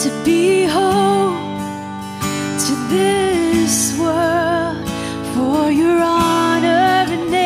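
A woman singing a worship song with vibrato, accompanying herself on a strummed acoustic guitar.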